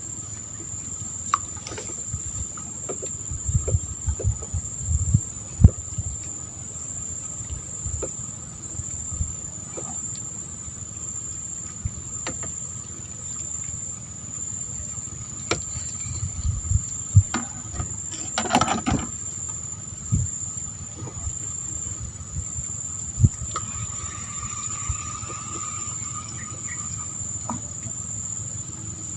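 Insects shrilling steadily in one unbroken high-pitched tone, with a fainter lower buzz beneath. Scattered low thumps and knocks come and go, thickest about a third of the way in and again past the middle.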